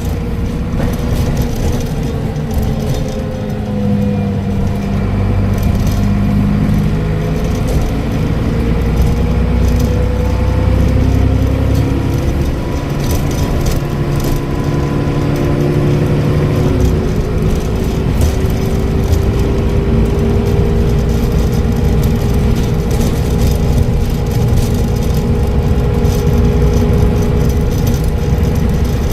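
Transbus Trident double-decker bus's diesel engine under way through its Voith automatic gearbox, with a high turbo whistle riding over it. The pitch climbs over the first half, the engine note drops about 17 seconds in at a gear change, then climbs slowly again.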